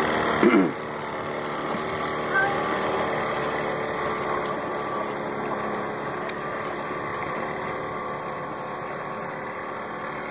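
Small outboard motor on a jon boat running steadily, slowly growing quieter as the boat pulls away. About half a second in there is a brief loud cry that falls in pitch.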